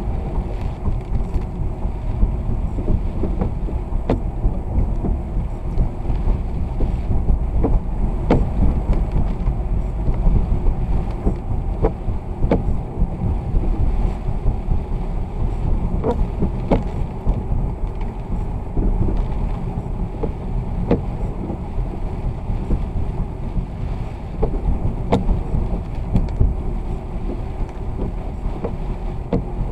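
A vehicle driving in the rain: a steady low rumble of engine, road and wind, with scattered sharp clicks.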